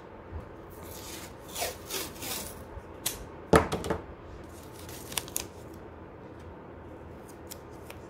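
Short rustling scrapes and clicks of masking tape being handled, with one sharper knock about three and a half seconds in.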